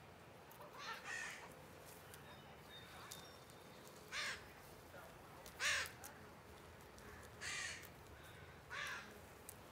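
A crow cawing: five short, harsh caws spaced unevenly, the loudest about halfway through.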